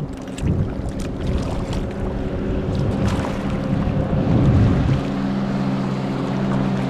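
A motorboat engine running with a steady drone, with wind buffeting the microphone and the rush of choppy water.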